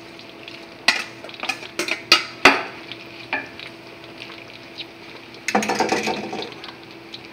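Metal clanks and knocks as a stainless-steel colander is tipped and tapped against a stainless-steel pot, emptying cooked macaroni into it: about seven sharp knocks in the first three and a half seconds, over a faint steady hum. About five and a half seconds in comes a second of rustling and scraping.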